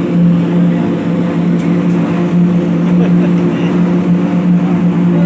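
An engine running steadily at a constant speed, giving an even, unchanging hum.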